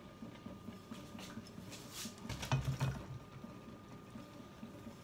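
Cooked meat being tipped out of a stainless steel bowl into a pot of pasta: a few faint clinks of metal, then a short cluster of soft knocks and a dull thump about two and a half seconds in.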